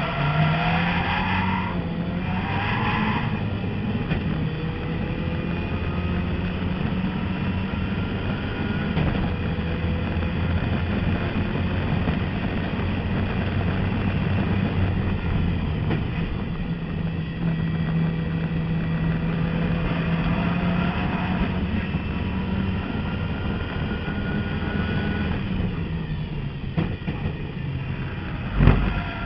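Turbocharged race car's engine heard from inside the cockpit at race pace. It pulls hard up through the gears to top speed, with pitch steps at each shift, then comes off the throttle and slows for a corner. A single loud thump comes near the end.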